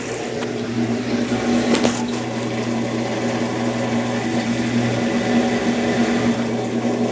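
Consul Facilite 10 kg CWC10 top-loading washing machine running in its rinse-and-spin cycle: a steady electric motor hum over a constant wash of water noise, with a faint click about two seconds in.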